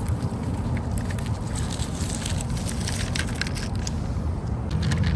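A steady low rumble with scattered crackling clicks over it, the clicks coming more often in the second half.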